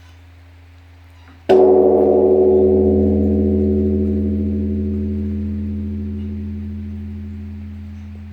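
Large bronze Korean Buddhist temple bell struck once, about a second and a half in, then a long deep ringing hum that slowly fades.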